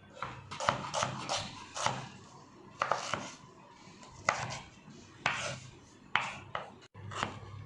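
Knife finely chopping peeled ginger: a string of sharp, irregularly spaced blade strikes, some in quick clusters.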